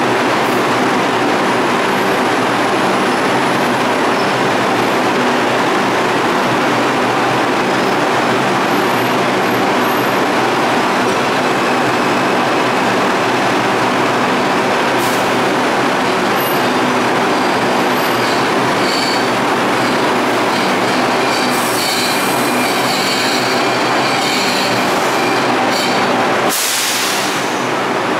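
R142 subway train rolling slowly into the station alongside the platform: a steady rumble of wheels on rail with thin high-pitched wheel and brake squeals, which grow more frequent in the last several seconds. Near the end there is a short hiss and the low rumble drops away.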